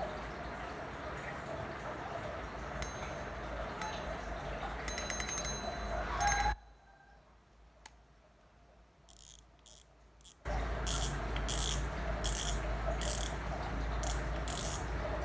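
Fishing reel's clicker ratcheting in runs of sharp clicks as the spool is turned, over a steady background hiss. It drops to near silence for about four seconds midway, then the clicking comes back.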